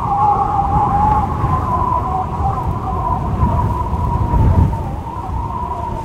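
Strong wind howling: a wavering whistle held around one pitch over a low, gusty rumble, with a stronger gust about four and a half seconds in.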